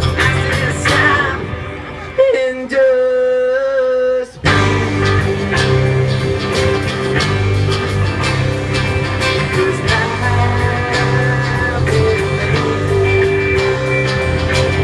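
Live rock band playing: acoustic guitar, electric lead guitar, bass and drums. About two seconds in, the band drops out, leaving one held, slightly wavering note for about two seconds. The full band then comes crashing back in.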